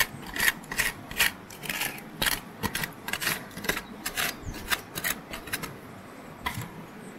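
Hand tool scraping and digging into the ground, a quick run of rasping strokes about three a second that stops about five seconds in, with one more scrape later.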